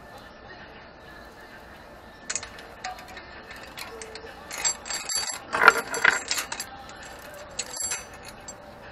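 Bicycle roller chain clinking and rattling as it is handled and fed onto the rear sprocket, in a few short spells: briefly a little after two seconds in, loudest around the middle, and once more near the end. Faint radio music plays underneath.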